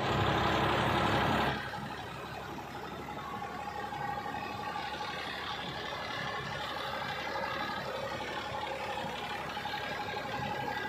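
Massey Ferguson 246 4WD tractor's diesel engine running steadily under heavy load while it drives a rotavator through wet soil. The sound is louder for the first second and a half, then settles to an even drone.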